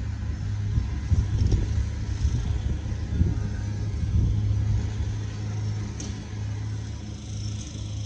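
Freight train of open-top hopper cars rolling past at a steady pace: a continuous low rumble of wheels on rail with a steady low hum underneath.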